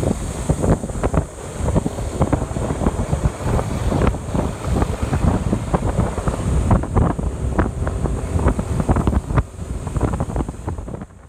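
Wind buffeting the microphone of a camera on a moving motorcycle: a loud, gusting low rumble with irregular thumps and road noise underneath, easing off right at the end.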